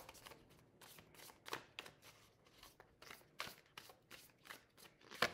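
A deck of tarot cards being shuffled by hand: a quiet run of short, irregular card clicks and slaps.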